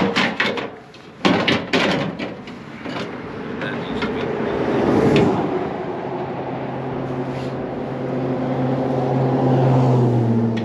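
A few knocks and clanks, then a heavy-equipment engine comes up and runs steadily, growing a little louder near the end.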